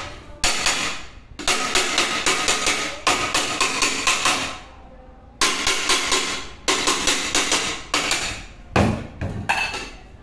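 Hammer tapping on a metal pressure cooker to knock out a small dent so the lid seats properly. The taps come in quick runs of about five a second, with short pauses between runs, and each strike rings briefly.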